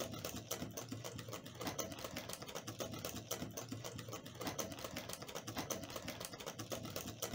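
Wire whisk beating crepe batter in a glass bowl: rapid, light clicking of the metal tines against the glass.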